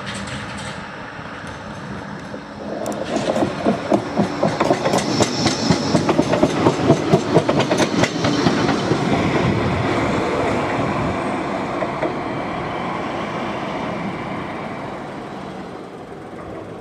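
Blackpool tram passing, its wheels clattering in quick regular knocks over the rail joints from about three seconds in, then a steady running sound that fades away toward the end.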